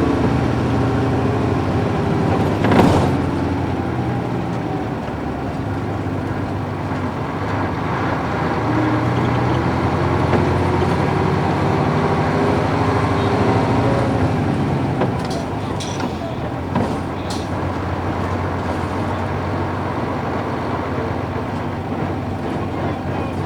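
Nissan Diesel UA440 city bus's PF6 diesel engine running on the road, its pitch rising and falling with the changing revs. A brief sharp burst of noise about three seconds in, and a few faint clicks later on.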